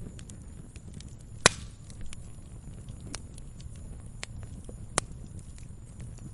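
Wood campfire burning with a low steady rumble and scattered crackles, with a sharp loud pop about a second and a half in and another near the five-second mark.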